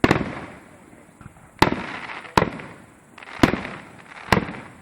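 Fireworks display: aerial shells bursting overhead, five sharp bangs about a second apart, each trailing off as it fades.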